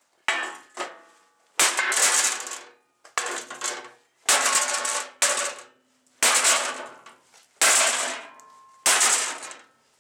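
Sledgehammer blows on sheet metal on a metal workbench: about ten heavy strikes, roughly a second apart, each followed by a metallic ring that dies away.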